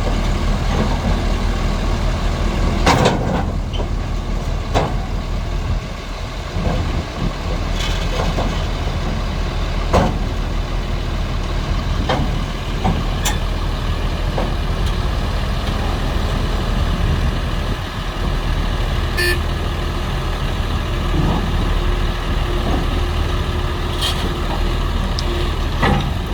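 Heavy diesel engine of a bulldozer or its transport truck running steadily, with a few scattered knocks and clanks.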